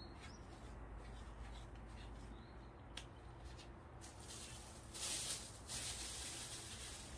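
Cloth rustling and rubbing as a dog's wet paws are handled and dried, with a few light clicks and a louder rubbing hiss about five seconds in.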